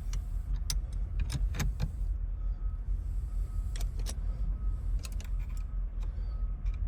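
Scattered sharp metal clicks and taps of hand tools and small parts being worked on a steering column, over a steady low hum.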